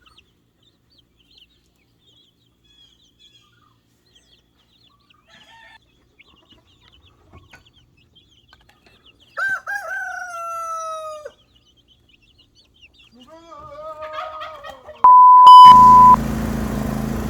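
Baby chicks peeping faintly, then a chicken giving a long, falling call about nine seconds in and more squawking a few seconds later. Near the end a loud, steady censor bleep lasting about a second covers a shouted swear word, followed by a rushing noise with a low hum.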